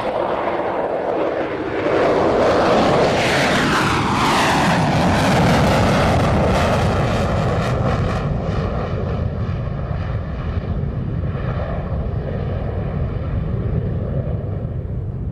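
F-14B Tomcat's twin General Electric F110 turbofans in full afterburner on a simulated wave-off, the jet accelerating away. Loud jet noise that swells about two seconds in and drops in pitch as the jet passes, then fades slowly with a wavering, hollow tone as it recedes.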